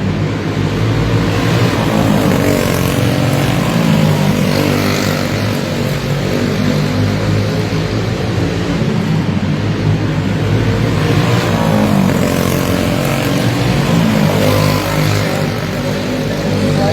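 Several racing karts with clone single-cylinder four-stroke engines running hard together, their engine notes rising and falling in overlapping waves as they lap the track.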